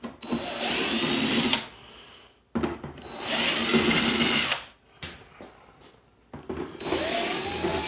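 Power screwdriver whirring in three short runs, backing screws out of a plastic keyboard case.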